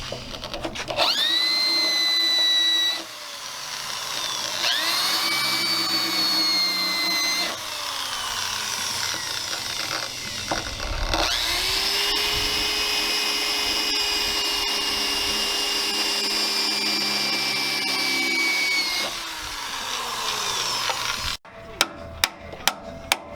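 A handheld rotary power tool working on the car's sheet-metal chassis, spinning up, running under load and winding down three times, the last run the longest. A few sharp clicks follow near the end.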